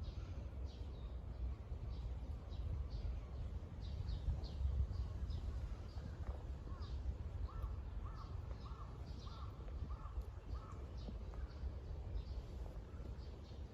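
Birds calling in a park: many short high chirps, with a run of about seven quick, evenly spaced calls in the middle, over a steady low rumble.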